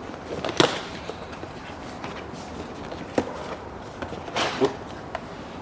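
Handling noises as a new panel air filter is taken out of its cardboard box: a few sharp clicks and knocks, then a longer scraping rustle about four and a half seconds in.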